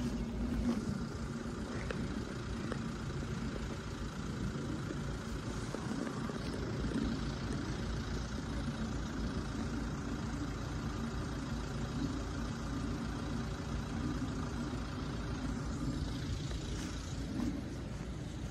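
Steady low rumble of road vehicles idling, held at the lowered level-crossing barriers.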